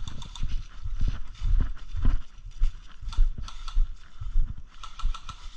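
Footsteps of a player walking on the ground at about two steps a second, with equipment jostling and rattling on each step.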